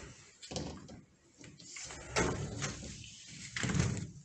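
A few scattered knocks and bumps from movement in a small room, the loudest about two seconds in and near the end.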